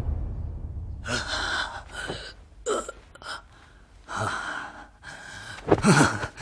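A man's wordless, breathy vocal sounds: about six short breaths or gasps spread over a few seconds, the loudest near the end. The low tail of the music fades out at the start.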